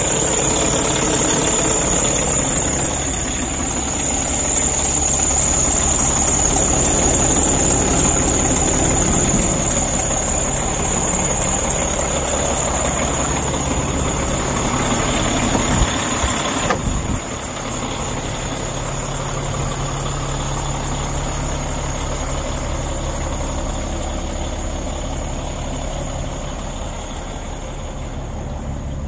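Caterpillar C13 12.5-litre inline-six diesel engine of a Sterling L9500 dump truck idling steadily. It drops a little in level about halfway through.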